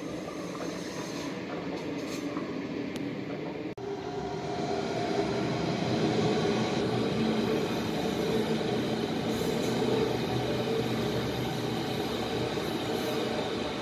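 An ICE high-speed train rolling past on the tracks below. The sound cuts off abruptly about four seconds in, and a Berlin S-Bahn electric train passes instead, its steady running noise louder and carrying a faint steady tone.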